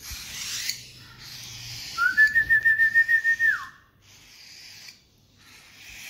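A person whistling one note to call a cockatiel chick before feeding, a cue used to train the bird to come for its food. The note starts about two seconds in, rises, holds with a quick warble for about a second and a half, and ends in a downward glide. A fainter raspy hiss comes before and after it.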